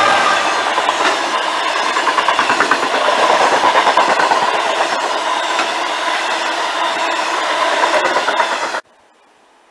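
DB Cargo Class 66 diesel locomotive (EMD two-stroke V12) passing close at speed with a train of box wagons. The engine's note fades as the wagons rush by with a rapid clickety-clack over the rails. The sound cuts off suddenly near the end.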